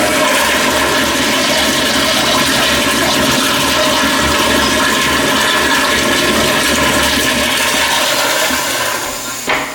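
Toilet flushing: a loud, steady rush of water that dies away about nine seconds in.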